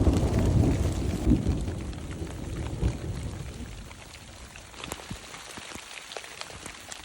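Rain falling with a low rumble of thunder that dies away over the first few seconds, leaving the steady hiss of rain and the sharp ticks of single drops.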